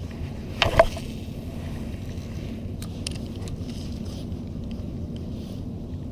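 Steady low rush of wind and moving water, broken by a short loud whoosh a little under a second in, followed by a few faint clicks about three seconds in.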